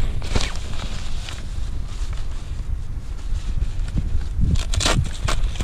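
Nylon Wychwood car seat protector rustling and crinkling in bursts as it is handled and stuffed into its pouch, over a steady low rumble.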